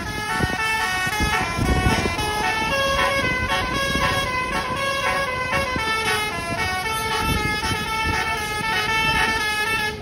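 Indonesian "telolet" bus horn: a multi-tone air horn playing a quick tune of stepping notes, over the rumble of road traffic.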